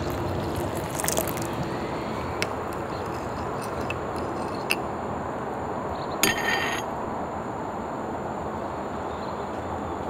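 Hot water poured into a ceramic bowl, trailing off in the first second or so, then a few light clinks of a ceramic soup spoon against the bowl while stirring, the loudest about six seconds in with a short ring, over a steady background hiss.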